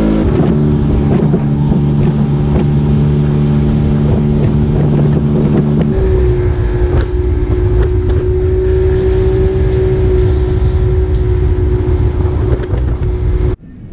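Boat's outboard motor running steadily at cruising speed, with water rushing and slapping against the hull and wind buffeting the microphone. The engine tone shifts about six seconds in, and the sound cuts off suddenly near the end.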